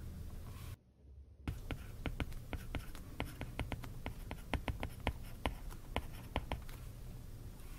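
Apple Pencil's plastic tip tapping and clicking on the iPad's glass screen while handwriting, a quick irregular run of sharp little clicks. The sound cuts out briefly about a second in, and the clicks stop shortly before the end.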